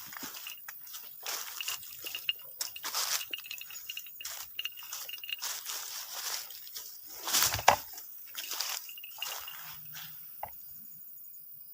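Irregular rustling and crunching, with the loudest crunch about seven and a half seconds in, dying away near the end.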